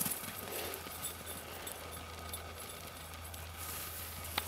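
Faint background noise with a low steady hum, and one sharp click near the end.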